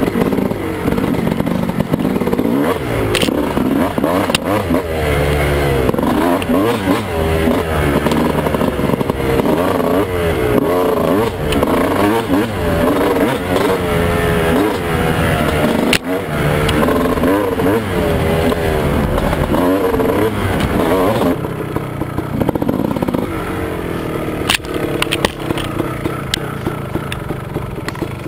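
2001 Honda CR250's single-cylinder two-stroke engine, fitted with a 10 oz flywheel weight, revving up and down over and over as the rider works the throttle through the gears on the trail. About 21 seconds in it drops to a lower, steadier note. Sharp knocks and clatter come through here and there.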